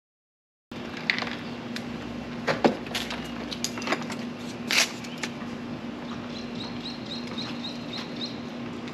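Scattered clicks and knocks of hands working on a car's front bumper, over a steady hum. A quick run of about eight short, high chirps comes in the second half.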